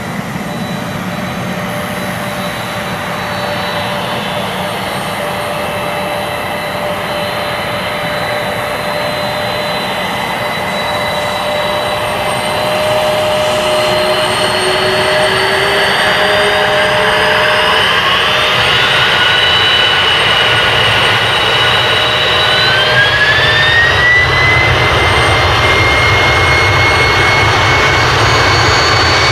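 Boeing 767 twin turbofan engines (General Electric CF6) spooling up for takeoff: a steady jet whine and rumble that rises in pitch in two steps, about halfway through and again near the end. The sound grows louder as thrust builds and the airliner starts its takeoff roll.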